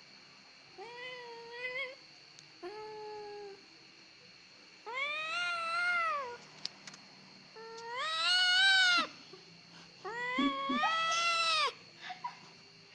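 Cat meowing in five long, drawn-out whiny cries while being held and handled, each cry rising and then falling in pitch, the later ones louder.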